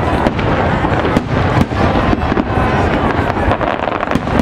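Aerial fireworks display: a rapid, overlapping string of shell bursts and booms with crackling.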